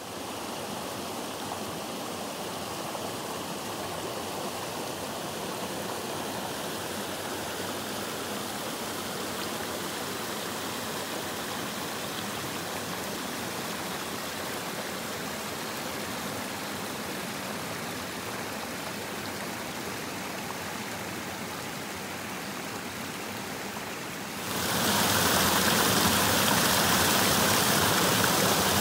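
The Little Luckiamute River's water flowing in a steady rush. About 24 seconds in, it jumps suddenly louder and brighter, to a stronger rush of water.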